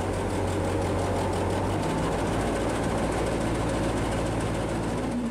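Canal tour boat's engine running steadily under way, a low hum whose pitch changes about two seconds in.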